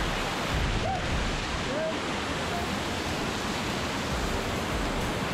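Waterfall in full flow rushing over rocks: a steady, loud rush of water.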